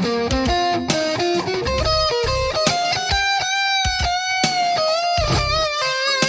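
Electric guitar playing a lead lick: a quick run of single notes, then long held notes with vibrato.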